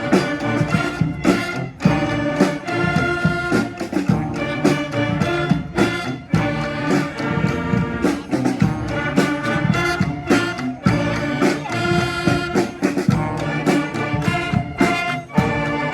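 Live brass street band playing a tune: horns such as trumpets and trombones holding and moving between notes over frequent drum hits.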